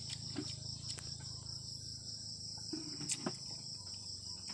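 Crickets chirping in a continuous high, finely pulsing trill, with a few short clicks over it, the loudest about three seconds in.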